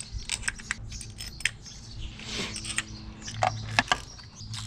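Irregular small metal clicks and clinks as the coil-pack hold-down bolts are dropped into place and started by hand.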